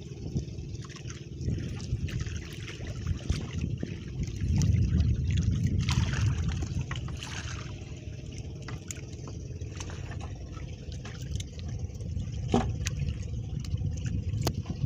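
Water trickling and splashing off a wet fishing net as it is pulled aboard a small wooden outrigger boat by hand, over a low steady rumble. Scattered small clicks and rustles come from the net and its floats being handled.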